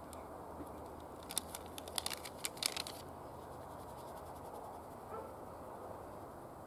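Paper spice packet of ground paprika crinkling as it is shaken over raw carp steaks: a short run of sharp crackles between about one and three seconds in, over a faint steady outdoor background.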